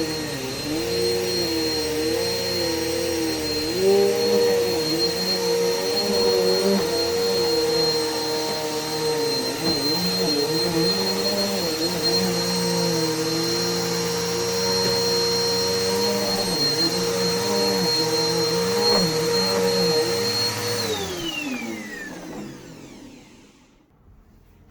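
Vacuum cleaner running steadily with a high motor whine, its lower pitch wavering as the suction load changes. About 21 seconds in it is switched off, and the whine falls in pitch as the motor winds down to a stop.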